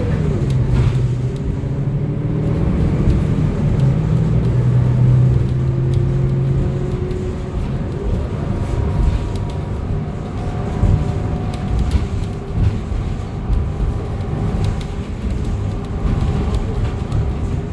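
A 2025 Gillig BRT+CNG 40-foot transit bus driving, heard from inside the cabin: its natural-gas engine and drivetrain running under a steady low road and tyre rumble. A strong engine hum holds for the first several seconds, then fades back into fainter, higher tones.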